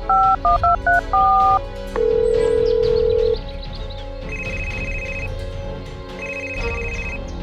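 Telephone call sound effect: a quick run of keypad dialing beeps, a steady tone for about a second, then a phone ringing in short bursts about every two seconds. Background music plays underneath.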